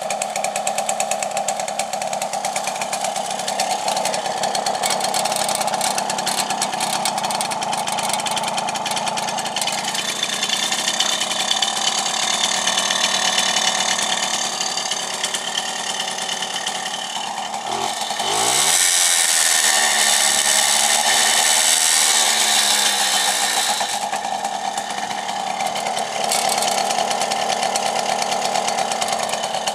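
Sachs 50cc two-stroke single-cylinder moped engine running on its stand with a steady buzz. About two-thirds of the way through it rises in pitch and runs louder for some five seconds, then settles back.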